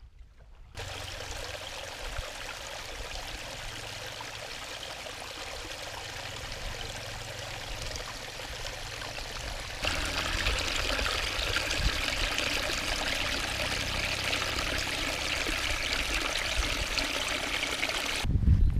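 Small stream of water running and splashing over mossy rocks as a steady rush that gets louder and brighter about ten seconds in.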